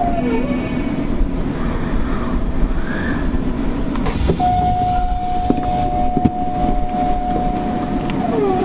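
Kita-Osaka Kyuko 9000 series subway train running through a tunnel, heard from inside the car: a dense, steady rumble of wheels and tunnel mixed with loud air-conditioning noise. Short gliding whines come near the start and near the end, and one steady whine holds a single pitch for about four seconds from about halfway through.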